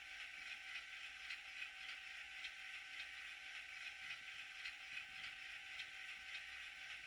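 Recorded GE diesel locomotive engine sound (C39-8, 7FDL-16 prime mover) played by the sound decoder of an N scale model through its tiny speaker, running steadily partway through the engine startup sequence. It sounds thin and faint, with no low end.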